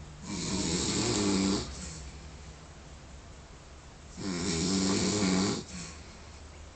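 A man snoring: two long, loud snores about four seconds apart, each lasting about a second and a half.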